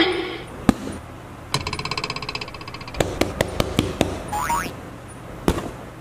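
A string of cartoon comedy sound effects: a boing at the start, a fast buzzing rattle, a run of sharp knocks, then a wobbling pitch glide and one last knock.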